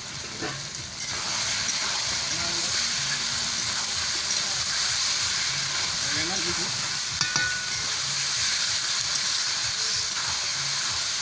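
Food frying in hot oil in a pan: a steady sizzle that grows louder about a second in. A brief clink sounds about seven seconds in.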